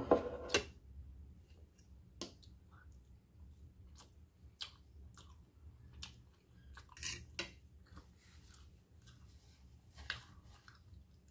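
Eating sounds at a table: a metal fork clinking and scraping on a metal tray in scattered short clicks, with mouth sounds of chewing. A couple of louder knocks at the very start as a mug is set down on the table.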